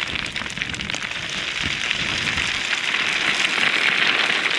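Steady rush of flowing river water, a dense hiss that grows a little louder over the last couple of seconds.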